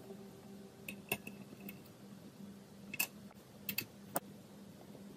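Small metal-on-metal clicks and taps of a screwdriver and screws being fitted to a Stirling engine's crank linkage, a handful of sharp ticks spaced irregularly over a faint steady hum.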